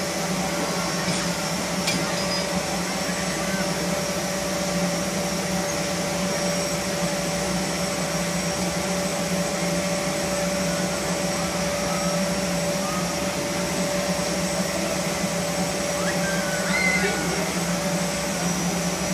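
Mechanical bull ride's machinery running with a steady electric whirring drone and a faint steady whine above it.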